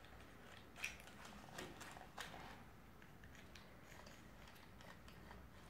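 Near silence: room tone, with a few faint clicks of a plastic toy drill being handled, three of them in the first half.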